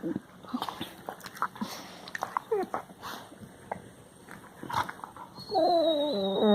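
Labrador retriever puppy vocalising: short scattered squeaky whines and grumbles, then, near the end, a longer drawn-out whine that wavers up and down in pitch.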